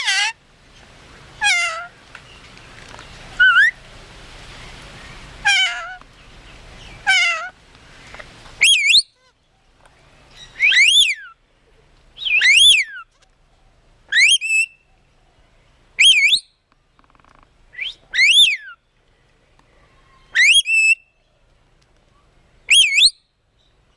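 Red-collared lorikeet giving a series of loud, pitched whistling calls, one about every two seconds. The first few waver downward in pitch, and the later ones each rise and then fall.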